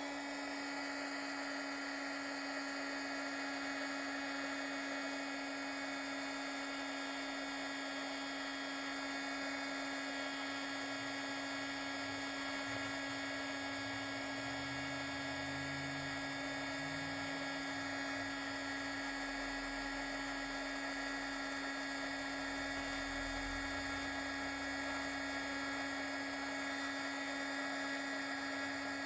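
Embossing heat tool running steadily, a constant motor whine with a blower hiss, as it melts gold embossing powder on a card tag.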